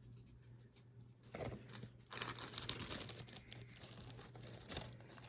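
Small plastic jewelry bag crinkling and rustling as it is handled, starting about a second and a half in, with scattered sharper crackles.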